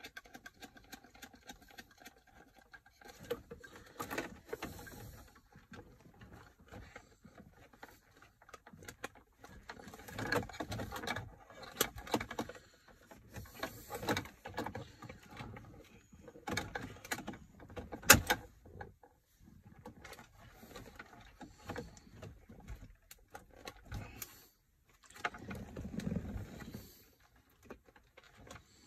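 Hands handling and fitting a plastic touchscreen head unit into a car dashboard: irregular clicks, taps and rustling, with one sharp click about eighteen seconds in.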